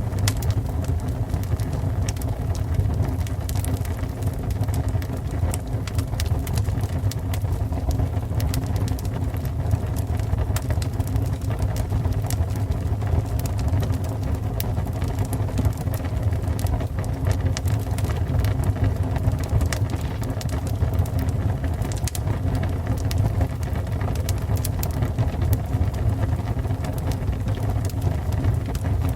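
Fire burning: a steady low rumble with frequent sharp crackles and pops throughout.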